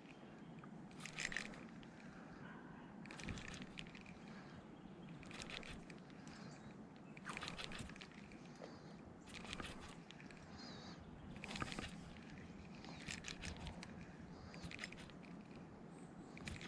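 Mitchell Avocet II spinning reel cranked in short, faint bursts every second or two, with pauses between, as a floating minnow lure is jerked, retrieved and let rise.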